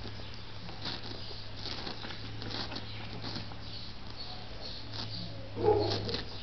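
A newborn puppy gives one short squeak near the end, over faint soft clicks and rustling and a steady low hum.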